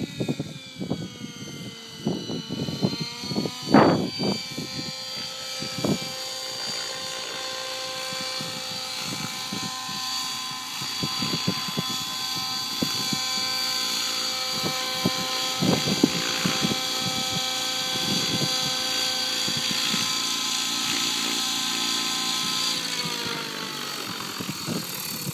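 Electric RC helicopter (Synergy E5 Stretch on 12S with 695 mm blades) flying: a steady whine of motor and rotor rising in pitch in the first few seconds, with uneven rushes of noise early on. It then holds a steady pitch while hovering low, and near the end the pitch falls as the rotor spools down after it sets down.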